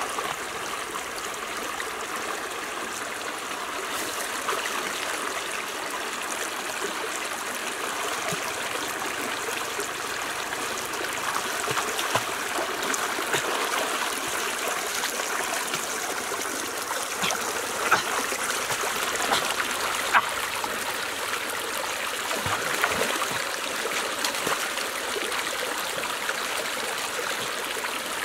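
Shallow stream running over rocks: a steady burbling rush of water, with a few brief sharper splashes in the second half as someone wades through it.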